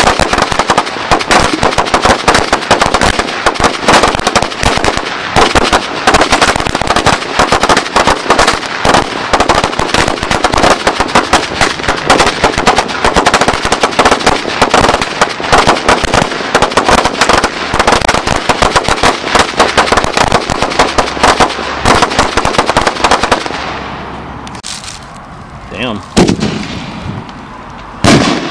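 Firecracker celebration roll going off in a long, dense, rapid string of sharp cracks that dies away after about twenty-three seconds. Near the end a short rising whistle, then a single loud bang.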